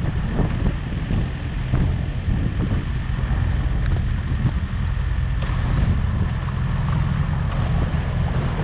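Boat engine running steadily as a low drone, with wind noise on the microphone.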